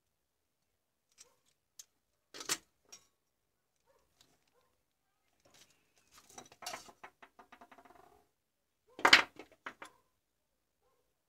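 Hand tools and small bulb parts being handled on a workbench: scattered light clicks, a knock about two seconds in, a run of quick rattling clicks around the middle, and a louder clatter near the end.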